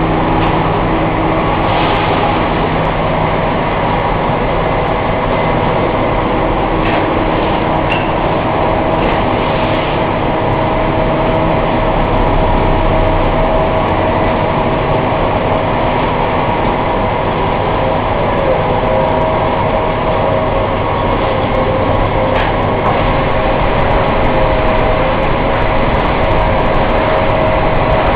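Twin-screw food extruder line for puffed snacks running: a steady mechanical drone with a constant whine, and a few faint ticks here and there.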